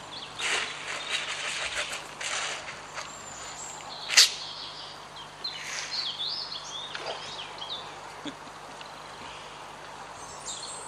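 Birds chirping in short, quick gliding calls, mostly about five to seven seconds in. Rustling handling noises come in the first couple of seconds, and a single sharp sudden sound about four seconds in is the loudest thing.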